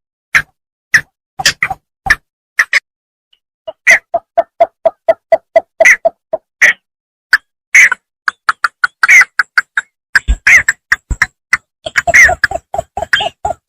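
Bittern calls from a paddy-field bird recording: irregular sharp clicking notes, with two runs of quick, evenly spaced lower notes at about four a second, one a few seconds in and one near the end.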